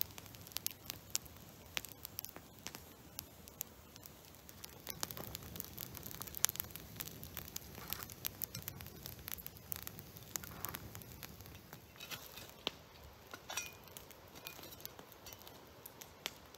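Campfire of logs and dry branches burning, crackling faintly with many scattered sharp pops and snaps.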